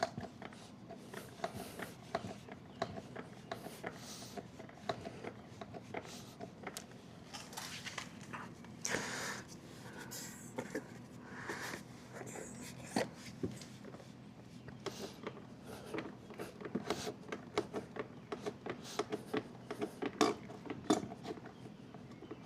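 Hand pump on a quart bottle of gear lube being worked to fill an outboard's lower unit through the bottom drain hole: faint, irregular clicks from the pump stroking, coming thicker toward the end.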